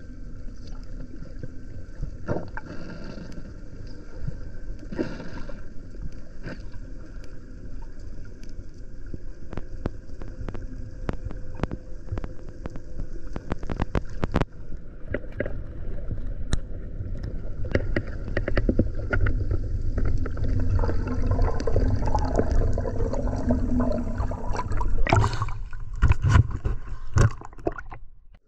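Underwater sound picked up by a camera during a breath-hold dive: low rushing and gurgling water with many scattered sharp clicks, growing louder in the second half, and a few loud sudden bursts near the end.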